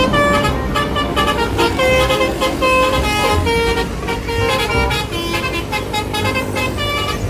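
Bus telolet horn, a multi-tone musical air horn, playing a quick melody of stepped notes, with a low rumble underneath.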